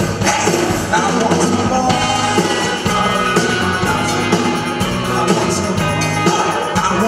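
Live soul band playing a song, loud and continuous.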